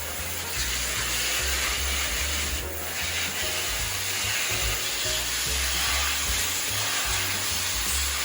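Water running steadily from a tap, a continuous hiss, with background music and its bass beat underneath.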